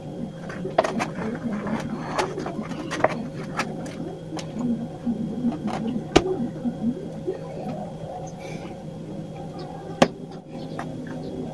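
Metal spoon scraping and clicking against the inside of a tin can, stirring sticky glue, with a few sharper knocks spread through, the sharpest about six seconds in and again near ten seconds. A steady low hum runs underneath.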